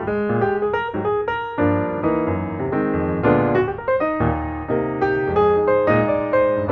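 Background piano music: a solo piano playing a flowing run of notes over chords, several notes a second.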